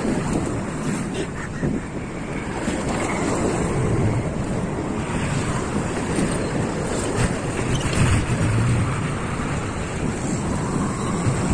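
Wind buffeting the microphone of a camera on a moving bicycle, a steady loud rush, with the engines of motorbikes and scooters in the traffic close by.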